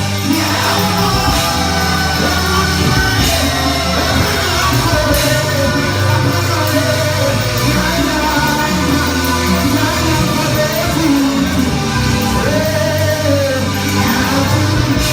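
Ghanaian gospel singing: a voice sings over band accompaniment with steady, sustained bass notes.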